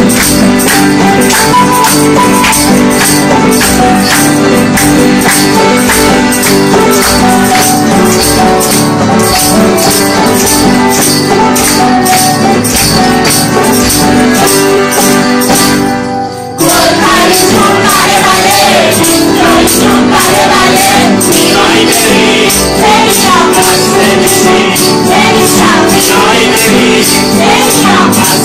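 Live Persian party music: accordion and piano over a tambourine struck on a steady beat of about two strokes a second. After a brief break about halfway through, the music resumes with the tambourine and a group of voices singing along.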